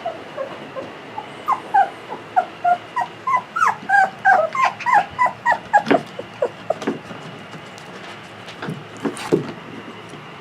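A litter of 5.5-week-old Aussiedoodle puppies crying, many short high cries overlapping in quick succession and thickest in the first half. Later the cries thin out and a few sharp knocks are heard.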